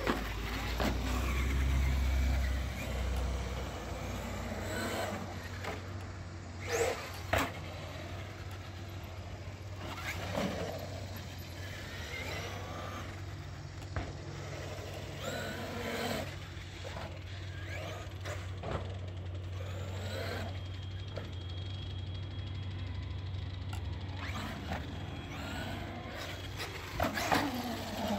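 Traxxas X-Maxx electric RC monster truck driving on concrete. Its brushless motor whines up and down in pitch with each burst of throttle over steady tyre noise, with a few sharp knocks.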